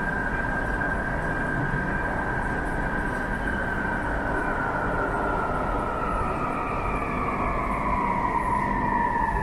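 Hyundai automatic metro train pulling into a station: a steady rumble of wheels on rail under a whine from its electric drive. About four seconds in, the whine starts falling in pitch as the train brakes, and a second, higher whine joins and falls with it.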